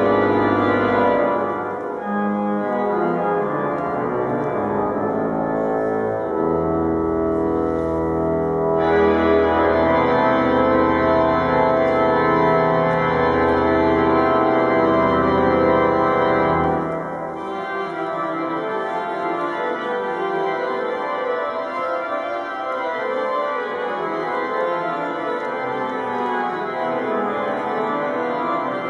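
Cathedral pipe organ playing sustained chords, with deep held pedal bass notes through the first two-thirds. The bass drops out about seventeen seconds in, leaving a lighter texture.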